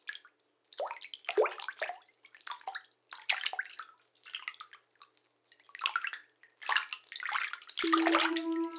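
Liquid pouring and splashing in irregular gushes, about one every second. Near the end a steady pitched tone with overtones comes in, louder than the splashing.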